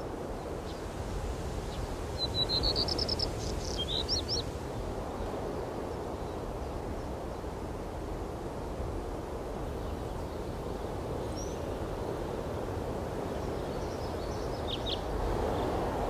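Small birds chirping over a steady outdoor background hiss: a quick run of high chirps about two to four seconds in, and a few more near the end.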